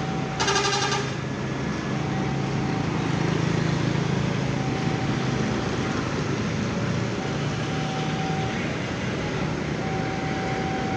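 A bus horn sounds once, briefly, about half a second in, over the steady hum of bus engines running at low speed.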